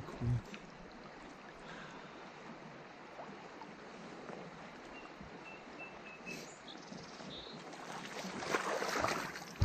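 Steady rush of a shallow river flowing past a low camera, with water splashing around a wader's legs louder near the end.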